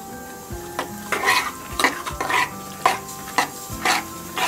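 Steel ladle stirring and scraping mashed raw mango and jaggery against the side and bottom of an aluminium pressure cooker, in repeated strokes about two a second.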